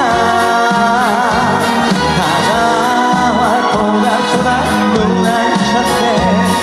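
Trot song performed live: a singer's wavering vocal line over backing music with a steady bass beat.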